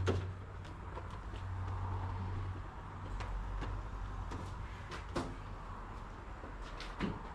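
A steady low hum of car-wash equipment, dropping lower about three seconds in, with scattered sharp knocks and clicks as a foam brush on its hose and boom is handled against a truck.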